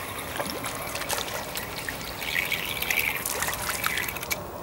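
Hooked crucian carp splashing and thrashing at the pond's surface as it is drawn in on a float rod: a quick run of small splashes and trickling water, busiest midway, that stops near the end.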